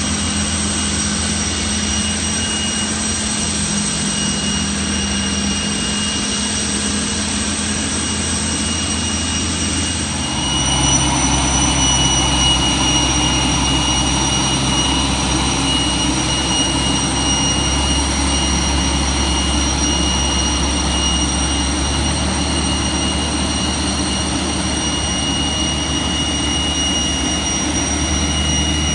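Steady high-pitched jet turbine whine over a low rumble from a Boeing 747-400 on pushback. The whine grows a little louder and brighter about ten seconds in.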